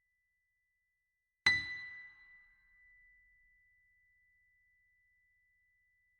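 A chime struck once about a second and a half in, ringing and fading away over a few seconds, over a faint steady high tone.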